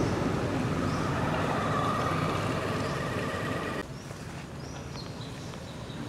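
Steady rumbling outdoor background noise, with a faint thin high tone running through it for the first few seconds. About four seconds in it drops suddenly to a quieter hush.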